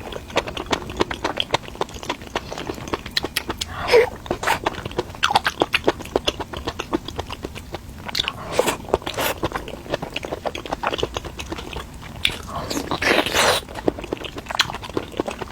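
Close-miked mukbang eating sounds: crunchy bites and chewing with many quick wet mouth clicks, and a few louder bursts about 4, 9 and 13 seconds in.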